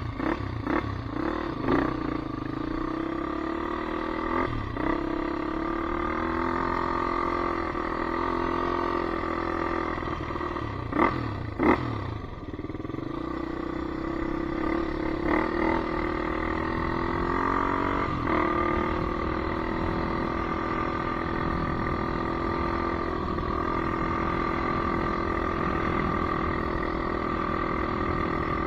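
Polaris Predator 500 ATV's single-cylinder four-stroke engine running, its pitch rising and falling a little as the revs change. A few sharp knocks cut in, the loudest two close together near the middle.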